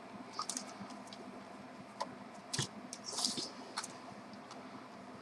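Faint handling sounds as the soldering station's power lead is unwound and handled: a few light, scattered clicks and a short rustle about three seconds in, over a low steady hum.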